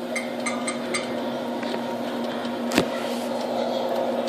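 Presto Pizzazz rotating pizza oven humming steadily as its motor turns the tray, with faint crackles from eggs frying on the pan and one sharp click a little under three seconds in.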